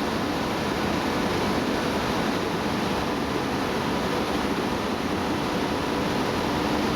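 Steady running noise of polyester staple fiber production machinery, an even noise with a faint constant hum, unchanging throughout.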